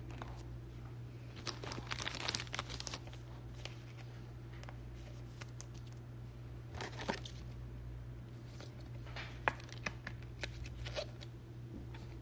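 Plastic crinkling and clicking as a trading card is handled and slid into a clear rigid plastic toploader, in a few short bursts about two, seven and ten seconds in.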